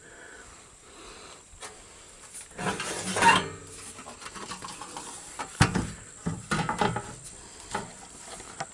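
Handling noise: rubbing and light clattering, with a scrape about three seconds in and a sharp knock about five and a half seconds in.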